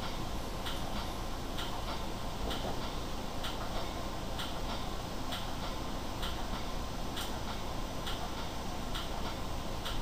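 Commuter train wheels clicking over rail joints in a regular rhythm, about once a second, over the steady rumble of the train running at speed, heard inside the passenger coach.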